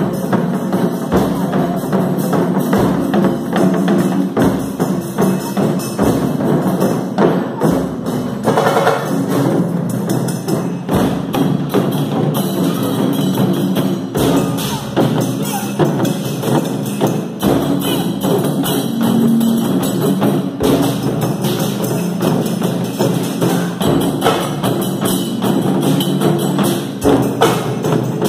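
Live taiko and percussion ensemble playing a fast, driving rhythm together, many drums struck with sticks at once, some of them carried slung from the players' shoulders.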